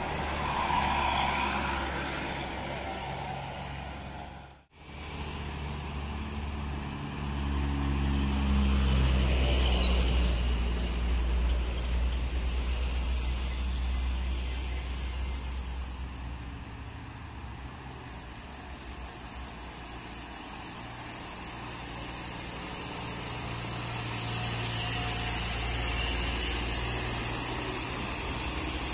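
Diesel engines of large and medium buses and trucks passing one after another, a deep rumble swelling and fading as each goes by. A steady high whine runs through the second half.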